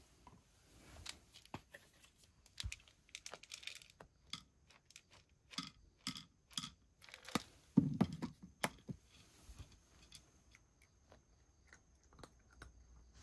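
Dry cat food rattling from a small cup into a wooden dish in a run of sharp clicks, with a louder clatter a little past the middle, then a cat crunching the kibble.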